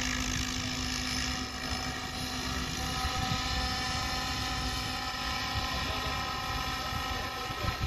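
Radio-controlled model helicopter flying a slow pirouetting hover manoeuvre: a steady whine of motor and rotor blades, with higher tones growing stronger about three seconds in.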